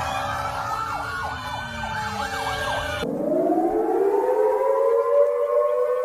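Two emergency-alert siren sounds in succession. The first is several layered wailing tones with quick repeated downward sweeps. About three seconds in it cuts to a civil-defence-style siren that winds up in pitch and settles into a steady wail.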